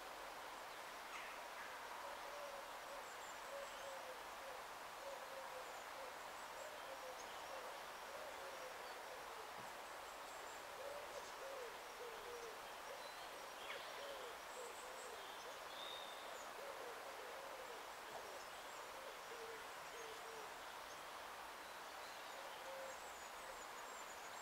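Low hooting or cooing bird calls, repeated in short wavering phrases, over a steady faint hiss, with a few faint high chirps from small birds.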